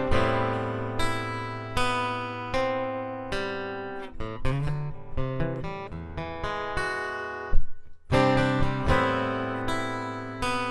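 Acoustic guitar strumming the instrumental intro of a song: a chord struck about every 0.8 s and left to ring, with a short break about eight seconds in before the playing resumes.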